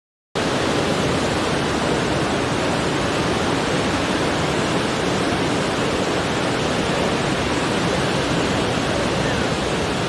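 Ocean surf breaking and washing over rocks: a steady, dense rush of water that cuts in suddenly just after the start.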